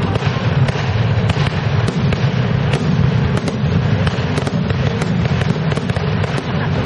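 Fireworks display: aerial shells launching and bursting overhead in a dense, continuous run of bangs and crackles several times a second, over a steady low rumble.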